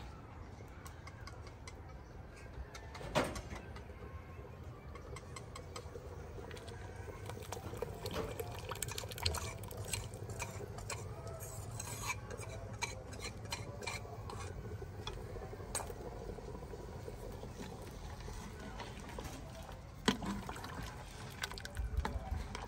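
Metal utensil clinking and scraping against a metal cooking pot while stirring, in irregular light taps. There is a sharper knock about three seconds in and another near twenty seconds.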